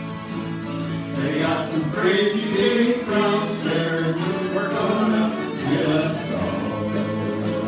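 Several voices singing a song together, accompanied by strummed acoustic guitars. The guitars play throughout, and the singing comes in about a second in.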